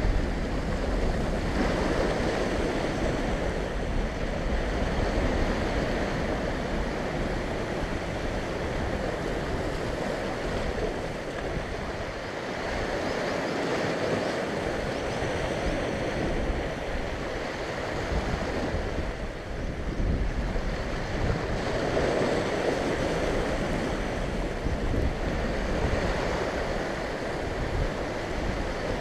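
Sea waves surging and breaking over a rocky shoreline, the wash swelling and easing every few seconds, with wind rumbling on the microphone.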